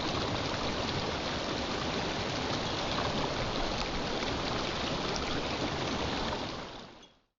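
Steady rushing of a stream's running water, fading out near the end.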